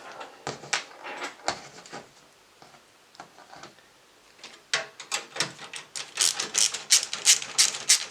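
Screwdriver backing a screw out of a PC case's expansion-slot bracket, first a few separate clicks, then from about five seconds in a fast run of sharp clicks, about four a second.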